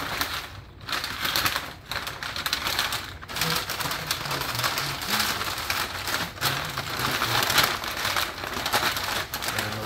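Stiff butcher paper crinkling and rustling as it is folded and pressed around a brisket, a continuous crackle of small sharp ticks with brief lulls about a second and three seconds in.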